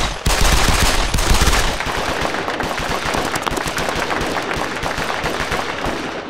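Pistols firing rapidly and without pause: a long, dense volley of gunshots, loudest in the first second or so, that trails off at the end.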